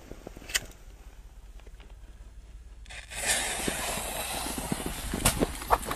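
A sharp click about half a second in, then a lit firecracker fuse starts fizzing suddenly about three seconds in: a steady hiss with crackles as it sprays sparks.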